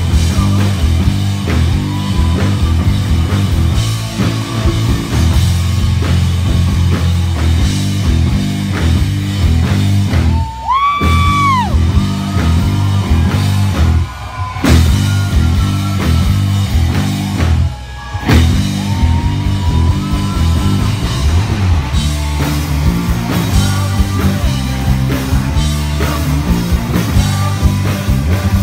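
Live rock band playing loud, with distorted electric guitars, bass and drums and the vocals buried in the mix. The band cuts out briefly three times, and a guitar note bends after the first stop.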